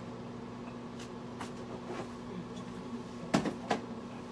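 Kitchen things being put away: a few light clicks and knocks, then two sharper knocks close together about three and a half seconds in.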